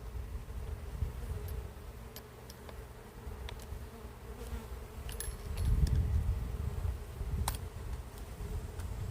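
Honeybees buzzing around an open hive, a steady hum. A few light clicks, and a louder low rumble swells about six seconds in.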